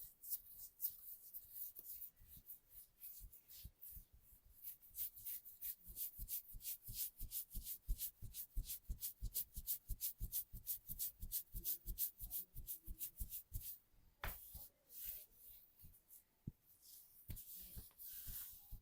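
Massage hands striking skin in a quick, even rhythm of soft percussive taps, about four a second. The taps thin out and grow fainter after about fourteen seconds in, with one sharper strike there.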